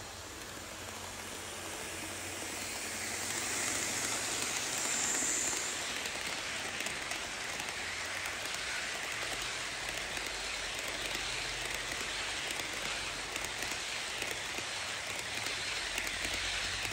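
HO scale model passenger train with E-unit diesel locomotives rolling past on its track: a steady rushing clatter of small metal wheels on rail, with a faint low motor hum. It grows louder over the first few seconds as the locomotives come by, then holds steady as the long string of cars passes.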